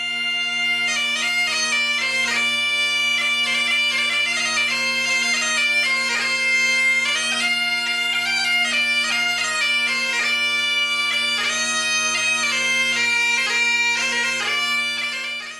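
Instrumental music: a melody played over two steady drone notes, cutting off abruptly at the end.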